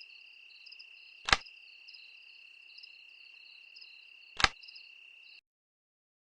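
Night-time cricket chirping, a steady high trill with repeating chirps over it, broken by two loud sharp clicks about three seconds apart. The crickets cut off suddenly a little after five seconds in.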